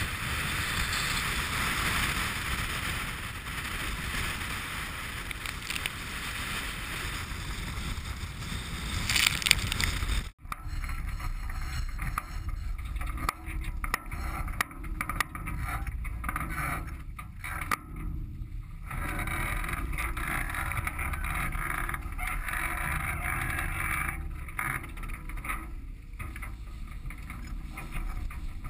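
Wind and rushing water on a Dazcat 1150 performance catamaran sailing fast through choppy sea: a steady hiss of spray and wake with wind rumbling on the microphone. The sound cuts out for an instant about ten seconds in and comes back with more low rumble and patchier hiss.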